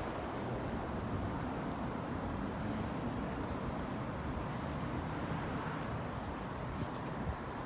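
Steady hum of city road traffic, with a couple of faint clicks near the end.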